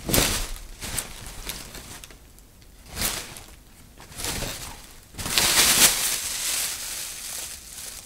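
Plastic grocery bag being moved and handled, crinkling and rustling in separate bursts. The longest and loudest stretch of crinkling comes a little past halfway and lasts over a second.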